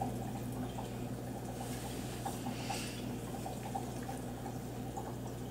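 Quiet background: a steady low hum with faint scattered crackling and no distinct event.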